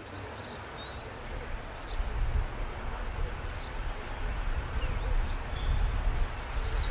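Wind rumbling on the microphone, getting louder about two seconds in, with faint bird chirps now and then.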